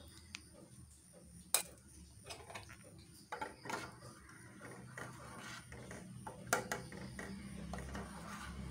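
Steel spoon clinking and scraping against a steel pot while gently stirring milk curdled with lemon juice into paneer curds and whey. It makes scattered light clicks, with two sharper clinks standing out about a second and a half in and again about six and a half seconds in.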